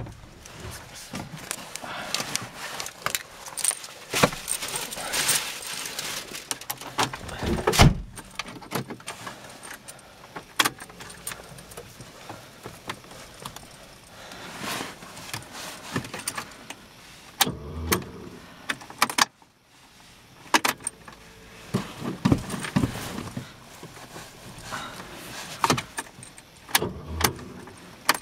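Keys jangling on the ring at the ignition, with scattered clicks and knocks inside a car cabin; the 1991 Ford Escort's 1.4 CVH engine is not running.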